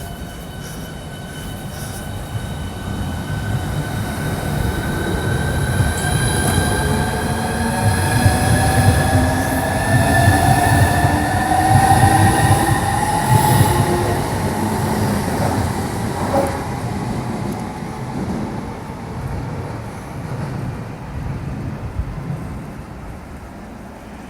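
Southeastern high-speed electric train running through the station, its rumble building to a peak midway and fading toward the end, with a whine from the traction motors that rises slowly in pitch.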